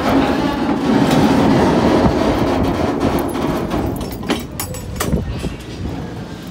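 Freight cars, led by a centerbeam flatcar, rolling on the rails: a steady rumble of wheels on track that gradually fades, with a few sharp metallic clanks about four to five seconds in.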